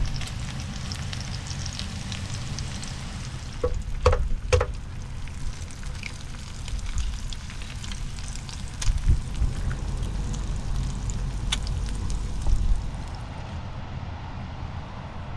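Homemade bacon sizzling and crackling in a pan, with a few sharp clinks about four seconds in.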